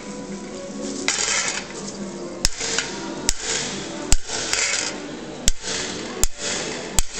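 Small hammer tapping a steel chasing punch into a metal plate to emboss a relief pattern. The taps are sharp metallic clicks in a steady rhythm, a little more than one a second.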